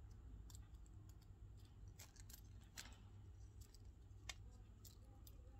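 A few scattered faint clicks of a resin watch strap and its buckle being handled and fastened, over a faint low hum.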